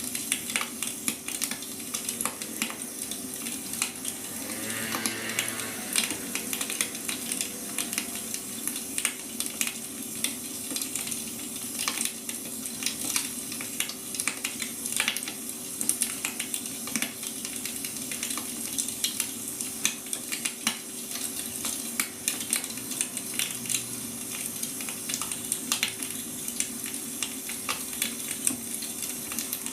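Wood fire crackling, with frequent small pops and snaps over a steady hiss. A steady low hum runs underneath, and a faint brief pitched sound comes about five seconds in.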